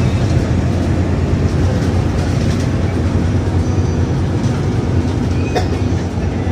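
Steady engine and road rumble of a moving city bus heard from inside the cabin, with one brief sharp click about five and a half seconds in.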